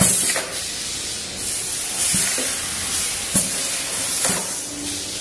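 Pneumatic stainless-steel tray sealing machine working through a sealing cycle: several sharp metal clacks from the tray drawer and sealing press, over a steady hiss of compressed air that swells about a second and a half in.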